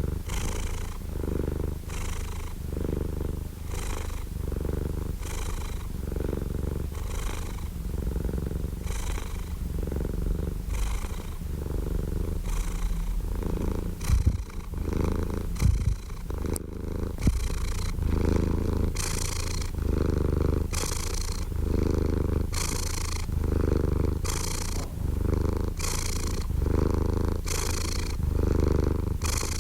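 Domestic cat purring steadily, the rumble swelling and easing in a regular rhythm with each breath in and out. A few brief bumps stand out around the middle.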